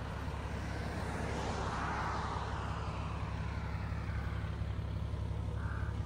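A vehicle engine running with a steady low hum, with a rushing sound that swells and fades about two seconds in.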